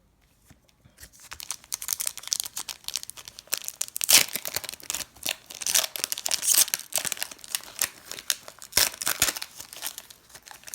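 A Japanese Pokémon Neo 2 booster pack wrapper crinkling and tearing as it is pulled open by hand. It makes a dense crackle of rustles that begins about a second in and fades near the end.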